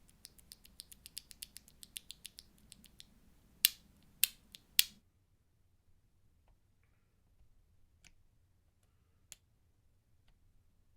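A quick run of light plastic clicks, about seven a second, then three loud, sharp clacks about half a second apart, then only a few faint scattered clicks. This is the handling of Akko V3 Cream Yellow mechanical keyboard switches.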